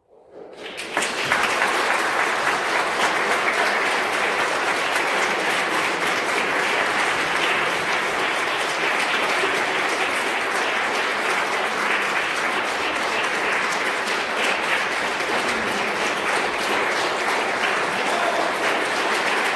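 Audience applauding, the clapping building up within the first second and then going on steadily.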